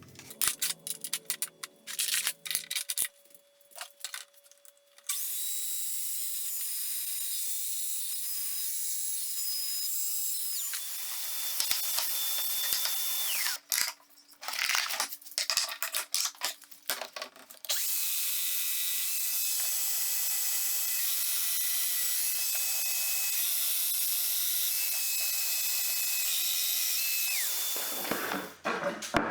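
A power tool running on wood in two long steady stretches, with a faint motor whine, and clicks and knocks of handling before and between them.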